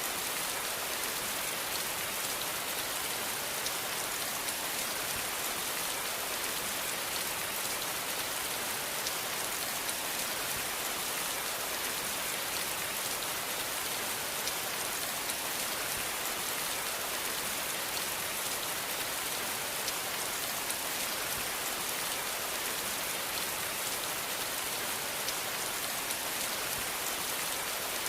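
Steady rain falling, an even hiss with fine, scattered drop strikes on a surface.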